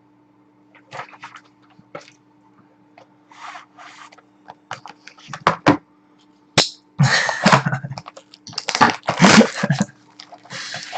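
Hockey card boxes and packs being handled and opened: scattered clicks and taps, then a few seconds of crinkling and rustling wrapper noise in the second half, over a steady electrical hum.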